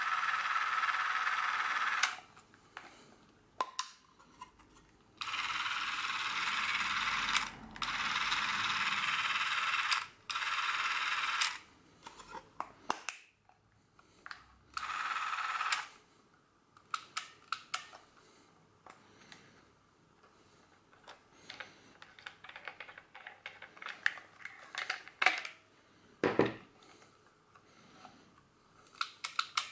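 Revue Super 8-Pocket Sport camera's film-drive motor whirring in five short, steady runs, each started and stopped abruptly. After that come scattered clicks from handling and working the camera's controls, with one louder knock near the end.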